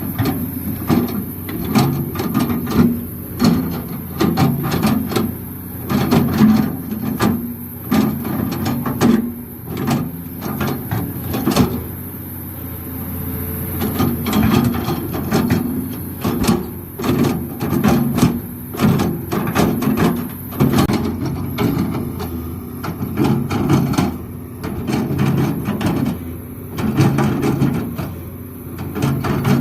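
Excavator's diesel engine working, its pitch and level swelling and falling again and again as the hydraulics take load, with frequent knocks and clanks.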